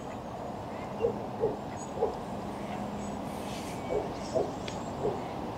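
A pigeon cooing: short low hoots in phrases of a few notes, about half a second apart, with a pause of about two seconds between phrases, over steady outdoor background noise.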